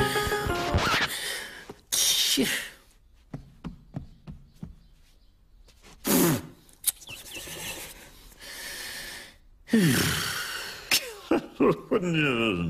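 A cartoon character's non-verbal vocal sounds: gasps, grunts and mumbled noises in short separate bursts, with small clicks in between. Record-player music fades out about a second in.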